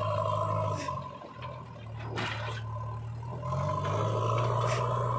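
JCB 3DX backhoe loader's diesel engine running under load as the loader arm lifts and tips the bucket; the engine note dips about a second in and rises again about three and a half seconds in. Loose soil spills from the bucket into the steel tractor trolley near the end.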